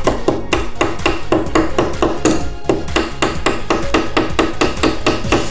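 Red plastic toy hammer rapidly tapping a nail into the lid of a balloon-pop game box, several quick knocks a second.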